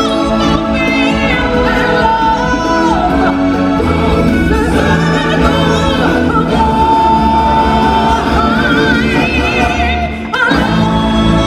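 Stage show music: singers holding long notes with vibrato over a full backing track. The sound briefly dips just before the end.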